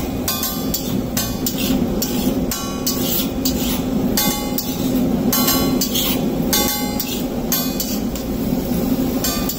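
Metal spatula striking and scraping a flat iron tawa griddle as an egg-and-rice mixture is chopped and spread. The spatula clangs sharply with a short ring about twice a second, over a steady low hum.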